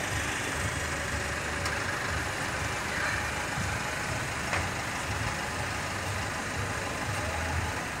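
A pickup truck's engine idling steadily, a continuous low rumble under even background noise.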